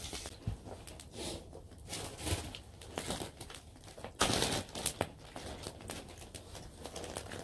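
Plastic bag crinkling and rustling as it is handled, on and off, with scattered small clicks; the loudest crinkle comes about four seconds in.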